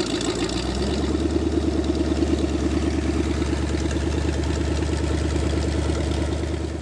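Freshly rebuilt Lincoln 368 Y-block V8 running steadily on an engine run stand, still short of operating temperature, with an even, rhythmic beat and a slight change in its low tone about a second in.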